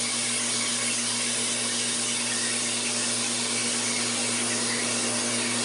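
A steady low hum with a constant hiss, unchanging and without any rhythm.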